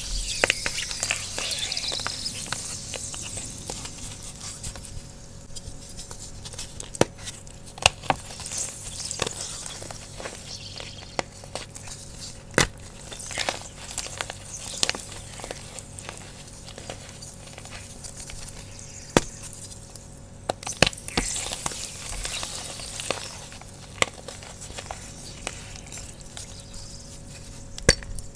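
Fresh blocks of Sports Chalk gym chalk, wetted with water, crushed and crumbled between bare hands: irregular crunches and crackles, with a hissing sizzle as the wet chalk breaks, strongest near the start and again about two-thirds through.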